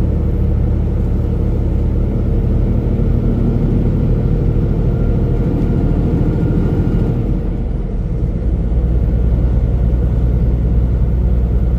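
Semi-truck engine running steadily at highway speed, heard from inside the cab as a low drone. The level dips briefly about eight seconds in, then the low drone comes back stronger.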